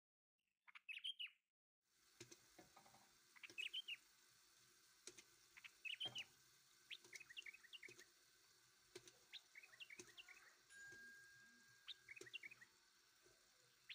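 Faint bird chirps: short high twittering calls in clusters every second or two. From about two seconds in they sit over a faint steady background hiss with a few light clicks.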